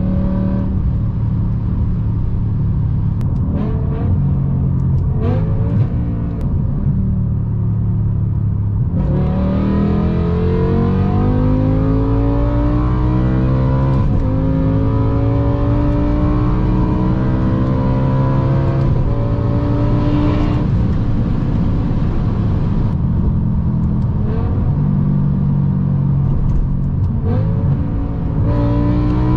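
BMW S85 5.0-litre V10 engine under way at speed, pulling hard: its pitch climbs from about nine seconds in and steps back down several times at gear changes before climbing again.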